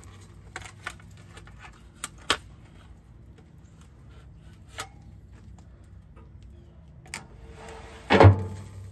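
Metal tongs clicking and tapping against a sheet pan and the steel smoker's expanded-metal grates as a seasoned chuck roast is lifted and set on the grate. A handful of sharp clicks, with a louder metal clunk near the end.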